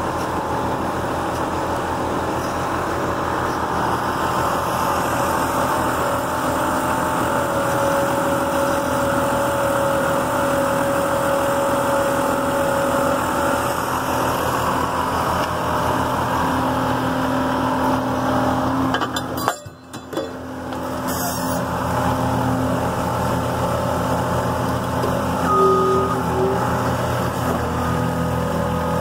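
2005 Packer 750 horizontal grinder running steadily, a continuous engine and machinery drone; the sound dips out briefly about twenty seconds in, then carries on.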